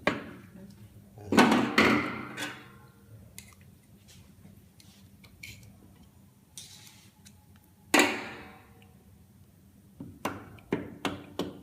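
Metal gearbox parts of a Hydramatic automatic transmission knocked and set down on a workbench during reassembly. There is a loud clank that rings on about a second in, a sharp ringing clank near eight seconds, and lighter clicks and knocks near the end.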